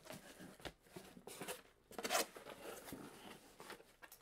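Cardboard shipping box being opened: its packing tape is slit and pulled and the cardboard flaps are handled, giving a few short scraping, tearing bursts about a second apart.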